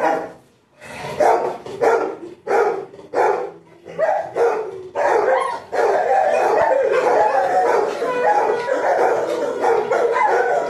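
Several pet dogs barking and howling, set off by a conch shell being blown. After a second of quiet come short separate barks, then from about halfway through the dogs join in one continuous overlapping howl.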